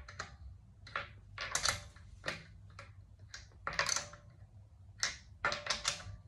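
Lug bolts being threaded and snugged by hand into a car wheel hub: irregular metallic clicks and short scraping rasps as the bolt and socket turn and seat against the wheel.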